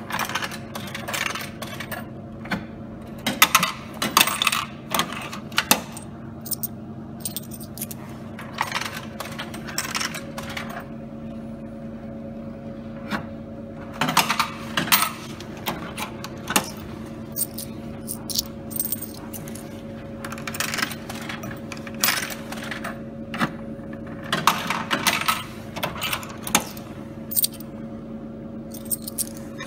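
50p coins clattering through a vending machine's coin mechanism and dropping into the return tray, again and again in short clusters of clinks and clicks, over a steady hum.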